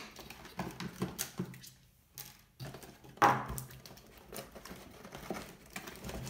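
Handling noise from a plastic RC transmitter being worked free of its cardboard box insert: scattered clicks, taps and rustles, with one sharper snap about three seconds in.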